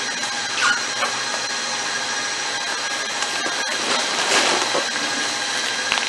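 Homemade belt conveyor running under power from a DeWalt joist drill: a steady motor whine with the spliced hay baler belt and rollers running, and a few brief squeaks, the loudest about four seconds in.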